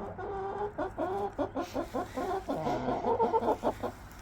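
A flock of backyard hens clucking and squawking in agitation. It is a rapid run of short calls, with a longer drawn-out call at the start, and the calls are busiest and loudest about three seconds in.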